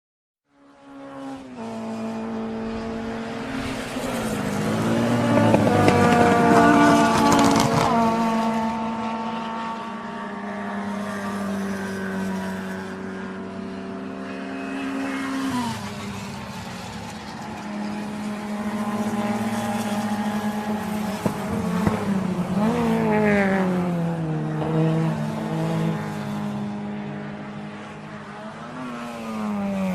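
Sports car engine running at speed, its pitch climbing and dropping several times with the revs, after a moment of silence at the start. It is loudest a few seconds in, where a rushing noise joins the engine, and the pitch falls suddenly about halfway through.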